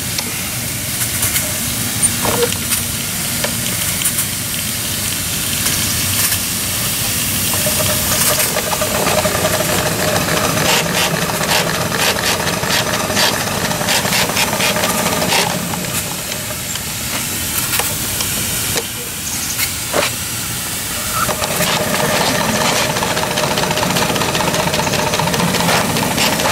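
Clishay live steam geared logging locomotive running forward under steam: a steady hiss of steam with runs of rapid clicking from its working engine.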